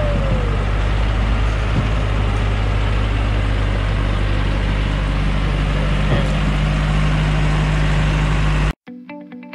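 Diesel engine of a TMT truck loaded with acacia logs running steadily while the truck sits bogged in a muddy rut on a steep slope; its pitch rises slightly about halfway through. Near the end it cuts off abruptly and electric guitar music starts.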